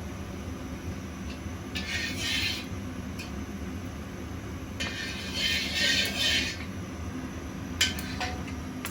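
Kitchen cooking sounds: two short bursts of hissing, the second about two seconds long, over a steady low hum, then a few sharp clinks of pots and utensils near the end.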